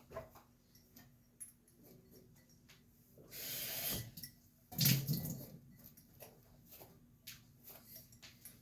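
Water splashing in two short bursts about a second apart, the second the louder, with light clicks and knocks around them.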